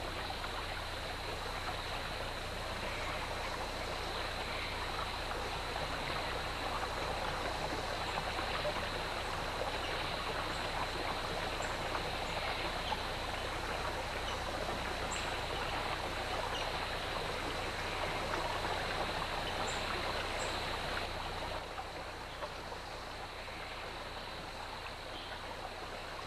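Creek water rushing steadily over rocks and small rapids, a little quieter for the last few seconds.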